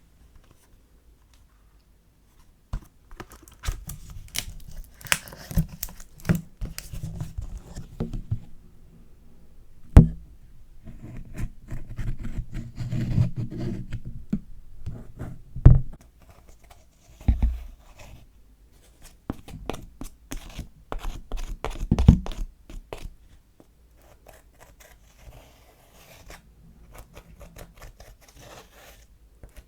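Close-up handling of slime being mixed with makeup: irregular sticky crackles, scrapes and clicks, with three louder knocks spread through the middle.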